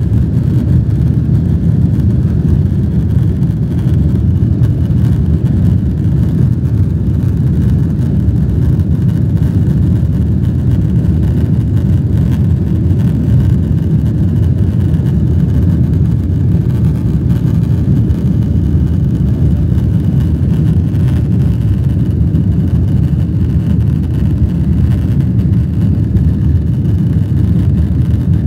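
Airliner cabin noise during the takeoff roll and liftoff: the jet engines at takeoff thrust heard from inside the cabin as a loud, steady low rumble.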